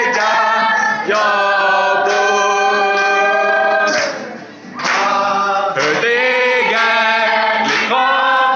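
A congregation of men and women singing together, led by a man on acoustic guitar, with a brief break between sung lines about four seconds in.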